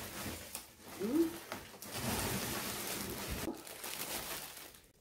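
A large clear plastic bag rustling and crinkling as it is pulled out of a cardboard box, mostly in the second half, after the box flaps are handled. A brief sound from her voice comes about a second in.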